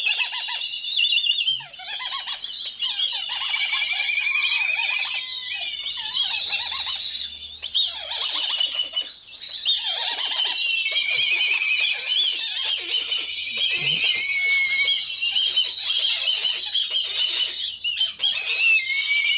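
Many black kite chicks calling at once: a loud, unbroken chorus of shrill, high whistles and quavering trills overlapping one another.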